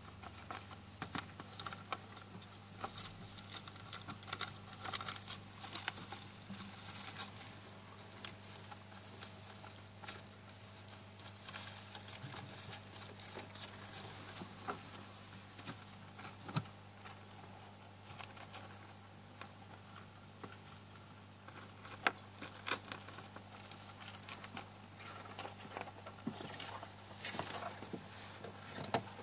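Faint scattered rustles, scratches and light clicks of small paws in paper bedding and a food pile as baby hamsters crawl about, over a steady low hum.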